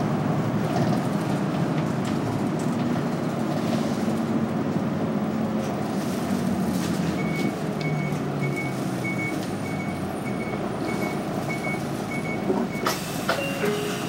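City bus engine and road noise, heard from inside the passenger cabin. About halfway through, an electronic beep starts repeating evenly, about twice a second, and it stops near the end when a sudden burst of noise cuts in.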